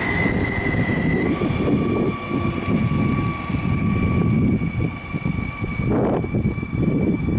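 Electric multiple-unit passenger train pulling away: a steady electric whine from its traction equipment that steps up slightly in pitch about a second in, over the rumble of its wheels on the rails.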